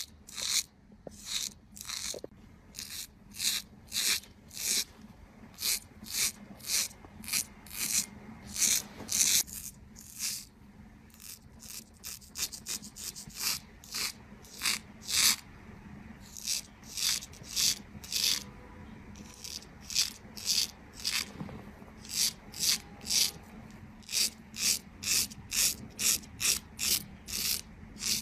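Straight razor scraping lather and beard stubble off a man's cheek and jaw in short, crisp strokes, one to two a second, with brief pauses between runs.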